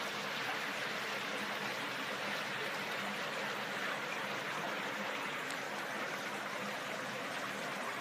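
Shallow brook running over rocks and stones, a steady, even flowing-water noise.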